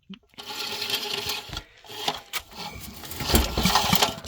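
Coleman Powermate 4000 W generator's 8 hp engine running steadily, with a few brief dropouts in the sound.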